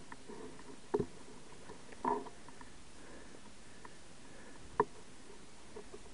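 Mountain bike rolling slowly down a rocky gravel trail, with a steady faint hiss and three sharp knocks as the bike jolts over stones: about a second in, just after two seconds with a brief ring, and near five seconds.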